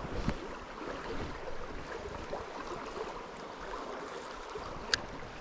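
Mountain trout stream running: a steady rush of water over rocks. Two brief clicks come through, one just after the start and a sharper one near the end.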